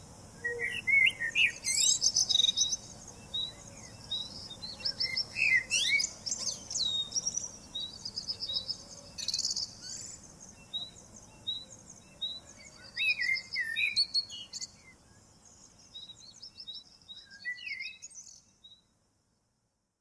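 Several birds chirping and calling, one of them repeating a short high note about twice a second over varied warbled calls from the others. The chorus fades and stops near the end.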